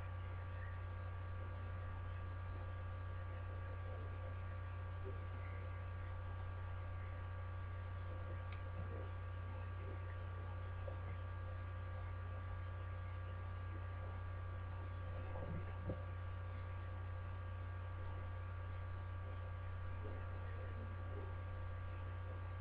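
Steady low electrical mains hum with a few faint thin high tones over it, picked up through a webcam microphone; a faint bump about two-thirds of the way in.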